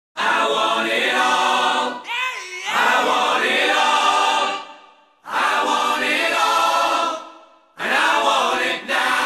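Soundtrack music: a choir singing long held chords in several phrases, with short breaks between them.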